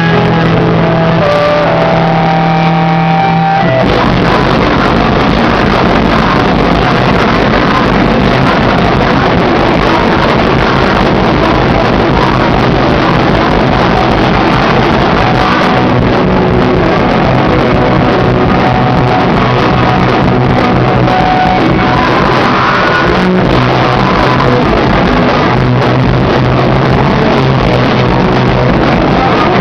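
Live rock band playing loud: sustained guitar notes ring for the first few seconds, then the full band comes in about four seconds in and keeps playing.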